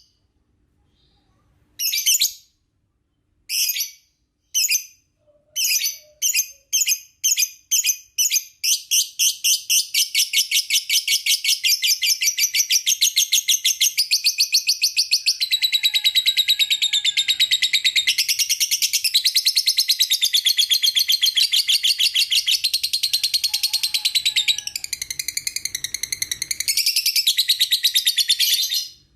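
Young lovebird calling: after a short pause, a few separate high chirps that come quicker and quicker and run into one long, unbroken rapid chattering trill lasting about twenty seconds, the kind of trill lovebird keepers call ngekek.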